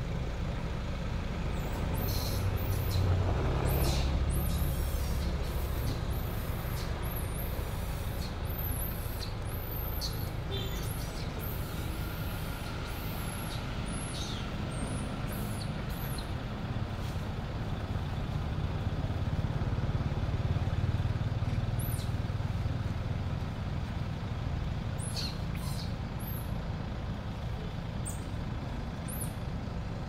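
Low, steady rumble of distant vehicle engines, swelling twice as traffic passes, with short high chirps scattered over it.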